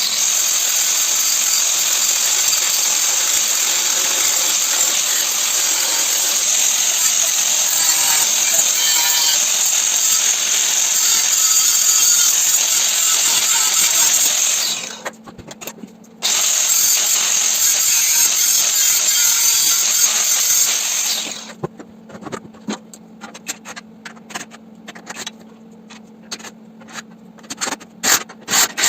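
Metalworking on a car's steel body panels during frame-rail repair. A long steady hissing run breaks off about 15 s in, resumes about a second later and stops about 21 s in; short crackling spurts follow.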